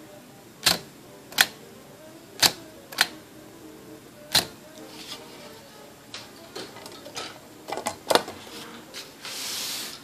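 Sharp clacks from a 1938 Adler Favorit 2 thrust-bar typewriter: five separate strikes in the first half. Then come lighter clicks and rattles as its metal top cover is lifted and the machine is handled, and a brief scraping near the end.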